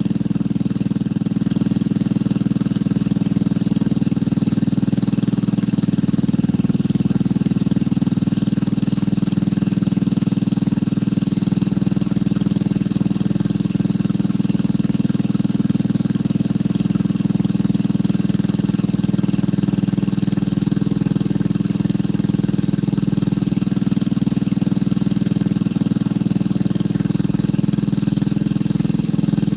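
Motorcycle engine running steadily at a constant pitch, with no revving.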